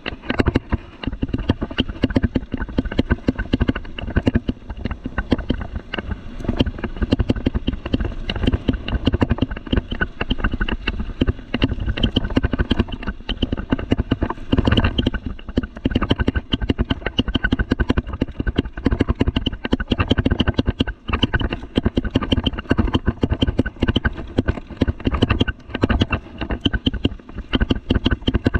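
Rocky Mountain Thunderbolt mountain bike rolling fast over a rough dirt and gravel trail: a constant, dense clatter of knocks and rattles from tyres on stones and the bike's chain and frame, carried straight into the camera.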